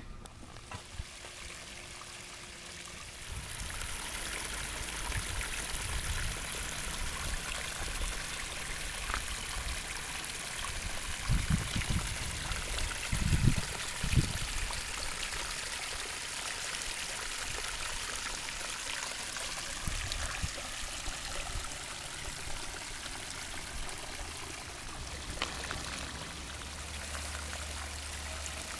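Water from a garden pond's waterfall and stream cascade splashing and trickling steadily into the pond. It grows louder a few seconds in, and a few low thumps sound about halfway through.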